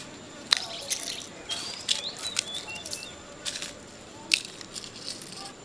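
Kitchen work: sharp clicks of utensils and short bursts of hiss, with birds chirping faintly in the background.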